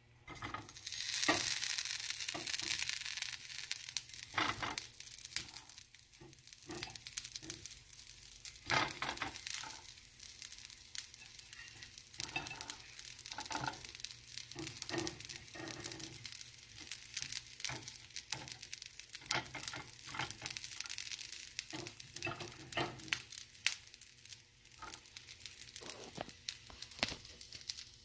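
Broccoli florets going into hot oil in a frying pan, sizzling. The hiss comes in about a second in and is loudest over the next couple of seconds, then settles into scattered crackles and pops as more florets are added.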